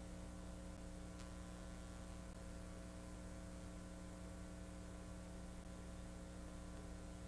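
Faint, steady electrical mains hum made of many evenly spaced tones, with a single faint click about a second in.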